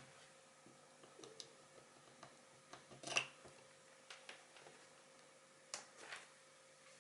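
Quiet room with a few faint clicks and taps from handling small objects, the loudest about three seconds in and two more near six seconds, over a faint steady hum.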